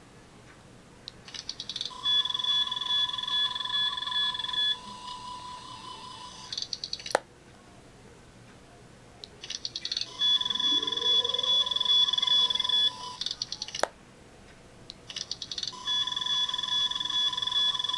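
Sound chip of a Star Trek Mark X medical tricorder prop going through its cycle three times: a rapid clicking opening "ratchet", the steady electronic scanning tones, then the closing "ratchet" ending in a sharp click as it shuts. The third cycle is still scanning at the end.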